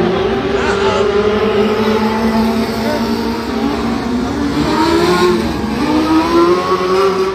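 Mod-Lite dirt-track race car engines running at speed, their pitch dipping and climbing again a few times as the cars accelerate.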